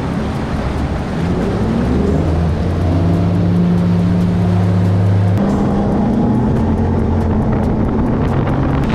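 Bass boat running at speed, its outboard engine and rushing wind and water noise under background music with held low notes that change pitch in steps and a ticking beat in the second half.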